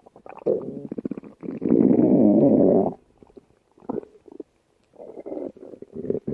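A person's stomach growling and gurgling: short gurgles, then a long loud rumble from about a second and a half in that lasts about a second and a half, then more short gurgles after a brief pause.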